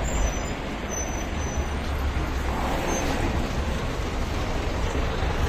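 A bus engine idling at the stop with a steady low rumble, amid city street traffic noise.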